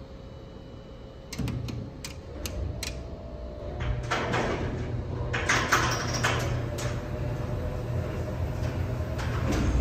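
Traction freight elevator in operation: a steady low machine hum sets in about four seconds in, overlaid with rattling and clanking from the car's doors and mesh gate.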